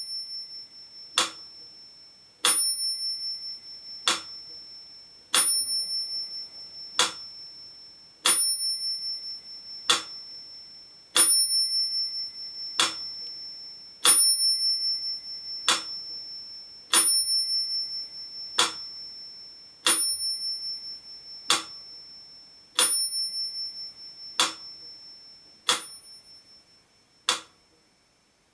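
Mechanical pyramid metronome ticking at 40 beats per minute, with its bell ringing on every second beat. The ticks alternate slightly short and long gaps, and the louder bell strokes ring on between them.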